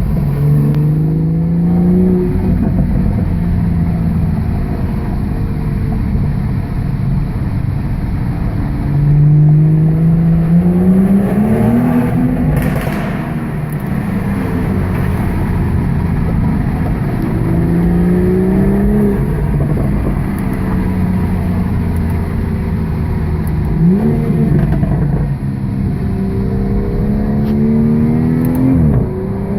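BMW 340i's turbocharged 3.0-litre B58 straight-six, breathing through an aftermarket AWE midpipe and exhaust, pulling hard several times in low gears: each time a rising engine note that breaks off and falls back. There are sharp exhaust pops and crackles when the throttle is lifted.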